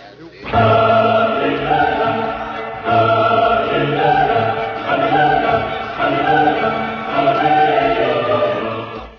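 Choral music: a choir singing held notes over a low bass, starting about half a second in and shifting chords every second or so.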